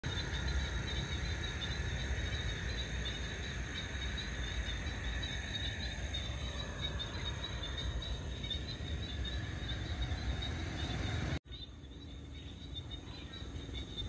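Evening wetland chorus: dense, continuous high-pitched chirping over a low steady rumble. It cuts out briefly about eleven seconds in, then carries on more quietly.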